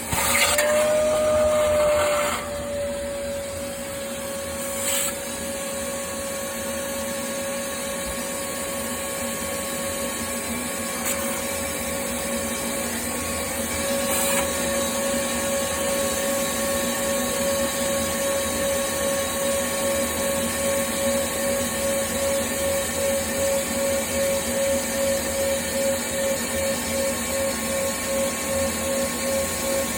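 An electric motor runs with a steady whine. A louder rushing noise comes in the first two seconds, and from about halfway through the whine pulses about twice a second.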